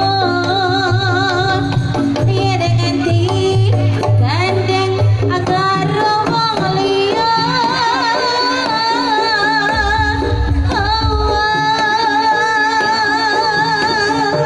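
Live jaranan music: a female singer's wavering, ornamented melody over kendang hand drums and gamelan-style percussion, with a steady low note underneath and a deep low swell about ten seconds in.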